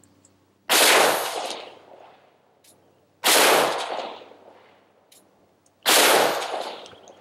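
Three pistol shots from a Glock 21 converted to .460 Rowland, spaced about two and a half seconds apart, each sharp crack trailing off in a long fading echo.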